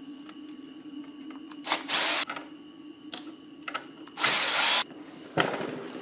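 Cordless drill/driver backing out small screws. The motor runs steadily, with two louder bursts about two seconds in and again around four and a half seconds, and a few short clicks between them.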